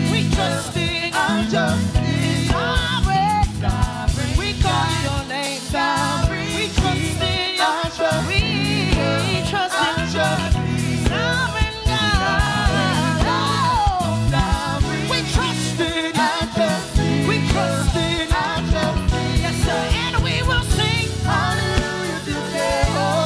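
Live gospel praise-and-worship song: a lead singer and backing vocalists singing over keyboards with a steady beat.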